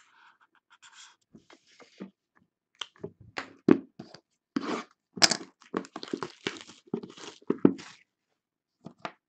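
Cardboard trading-card boxes being handled on a table: a marker scratching on a box at first, then a quick run of knocks and scuffs as the boxes are shifted, stacked and set down.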